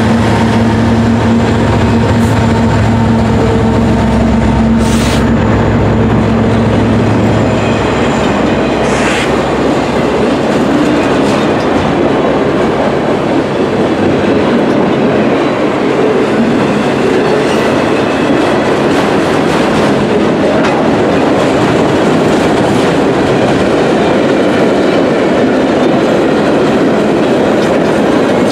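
Freight train passing close by. The trailing EMD SD70 diesel locomotive's engine drone fades after about eight seconds, leaving the steady rumble and clickety-clack of freight car wheels on the rails.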